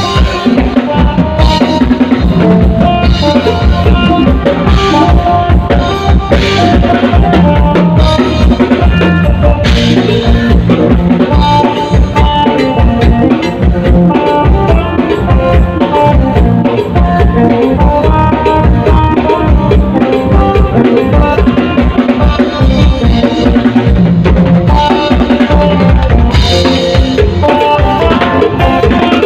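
Live band playing loud music through an outdoor sound system: a drum kit keeps a steady beat under an electric bass and the melody of an amplified phin (Thai lute).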